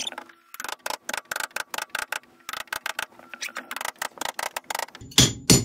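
A hammer tapping rapidly and irregularly, several taps a second, as carpet is knocked down onto gripper rods along the floor edge, with a few heavier blows about five seconds in.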